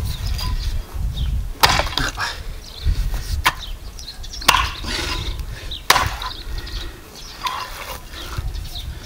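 Axe chopping into a pig's head on a wooden chopping stump: four sharp blows a second or two apart, with a few lighter knocks between them.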